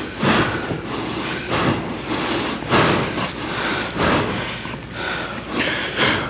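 Heavy, rapid breathing, about a breath a second, from people out of breath after wrestling a man to the floor and pinning him.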